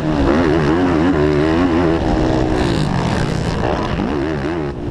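Racing ATV's engine revving up and down repeatedly under hard riding on a motocross track, with a steadier stretch in the middle before the revs swing again near the end.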